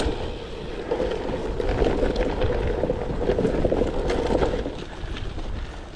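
Wind buffeting the camera microphone on a moving gravel bike, a steady rushing rumble with scattered light clicks. It eases off near the end.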